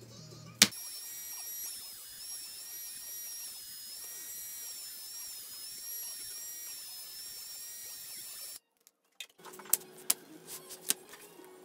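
A small electric motor running with a high whine whose pitch dips and recovers again and again, as if it is being loaded and eased off. It cuts off abruptly near the end, followed by a few clicks.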